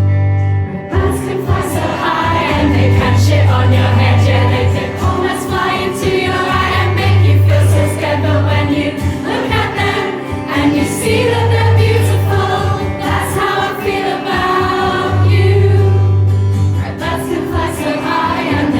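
Live pop song played in concert: many voices singing together over the band, with a deep bass note sounding in long stretches.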